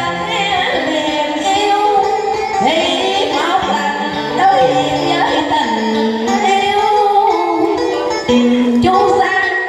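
A woman singing a Vietnamese song into a microphone over instrumental backing music.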